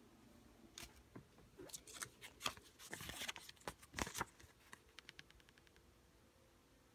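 Paper peso banknotes rustling and crackling as they are handled, one note taken away and the next brought up. A run of crisp crinkles, busiest in the middle, thins out to faint ticks near the end.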